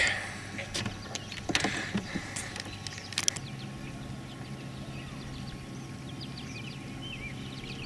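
A few sharp knocks and clicks from handling gear in a small fishing boat, then a steady low hum starts about three and a half seconds in and holds, with faint bird chirps.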